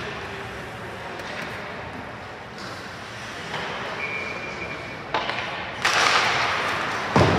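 Ice hockey game ambience in a rink with a background crowd murmur. A short high steady tone comes about four seconds in, a loud rush of noise follows near six seconds, and a heavy thud lands near the end.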